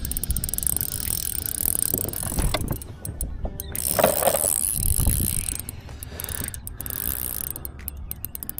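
Spinning reel being cranked steadily, its gears clicking and ticking as hooked shad are reeled in under load.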